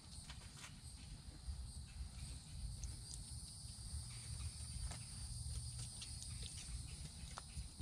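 Faint, steady high-pitched insect chorus over a low rumble, with scattered small clicks and rustles.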